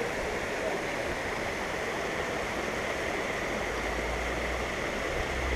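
Steady rush of water running over a small dam and down a stream. A low rumble joins in about halfway through.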